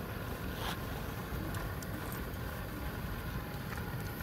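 Steady low outdoor rumble of background noise, with a few faint scattered clicks.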